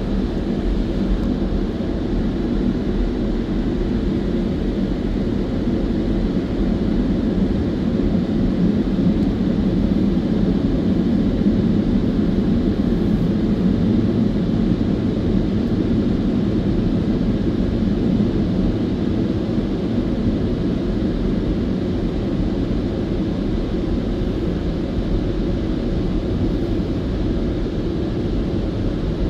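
Touchless automatic car wash machinery running, a steady rushing noise heard muffled from inside the car's cabin, growing slightly louder midway and easing off again.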